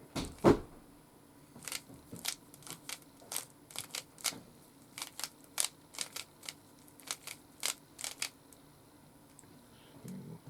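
Plastic Rubik's cube being twisted layer by layer: an irregular run of sharp clicks, about two a second, with a heavier knock about half a second in.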